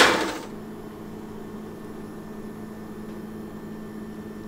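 Steady low hum of a convection oven running, with a faint held tone under it. A louder sound fades out in the first half second.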